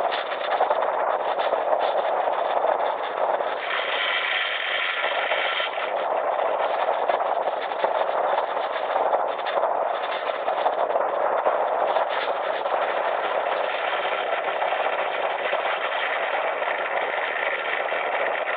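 Steady rush of airflow and propeller and motor noise from a Zigolo ultralight aircraft, heard from a camera on its wing strut while it moves fast just over grass. A higher whine rises above the rush for a couple of seconds about four seconds in.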